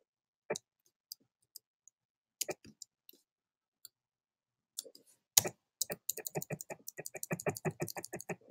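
Computer keyboard and mouse clicks: a few scattered clicks, the loudest a little after five seconds in, then a quick run of key taps, about six a second, from about six seconds in. The taps are an arrow key stepping through video frame by frame.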